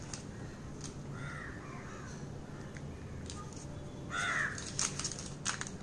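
A crow cawing twice, the second call louder, with a few light clicks and rustles as a plastic bottle cap cuts rolled dough on butter paper.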